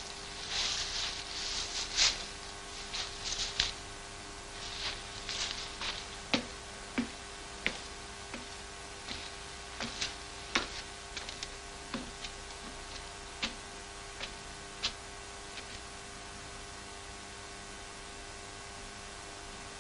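Soft rustling for the first few seconds, then scattered sharp clicks and ticks at irregular intervals, over a steady hiss and hum.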